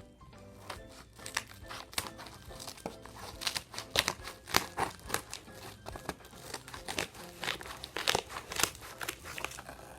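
A shipping package being cut open with scissors, its packaging crinkling and tearing in many irregular sharp crackles, over background music.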